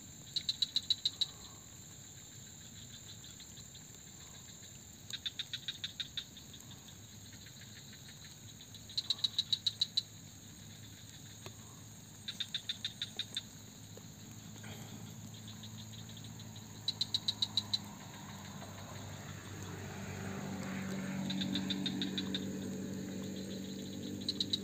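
A calling insect in the swamp vegetation gives short, high, rapid trills of about ten clicks each, repeated roughly every four seconds. From about halfway, a low engine hum comes in and grows louder near the end.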